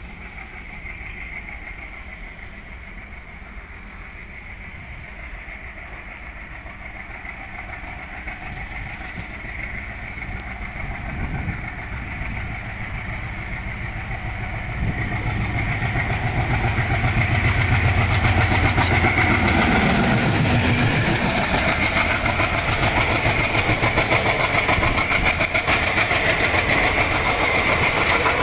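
A 16-cylinder ALCO diesel locomotive approaches slowly, its engine growing steadily louder, and passes close by about two-thirds of the way through. Its passenger coaches then rumble past, with wheels clicking rapidly over the rail joints.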